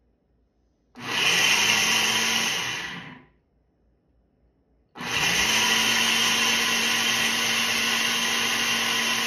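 Personal bullet-style blender blending a thick mix of nuts, dates and almond milk. It runs in a short burst of about two seconds that winds down, then after a pause of about two seconds starts again and runs steadily.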